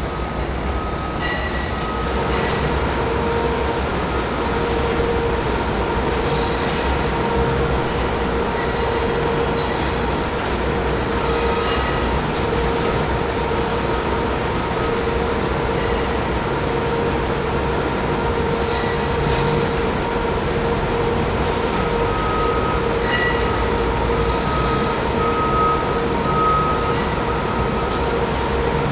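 Factory machinery running: a steady loud mechanical rumble with a constant whine that comes in about two seconds in, and scattered metallic clicks and clanks.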